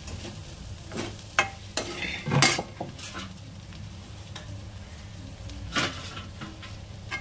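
Metal spoon scraping and stirring spine gourd pieces in a metal kadai over a light frying sizzle, mixing in the masala and chilli powder. The scrapes come irregularly, and the loudest is about two and a half seconds in.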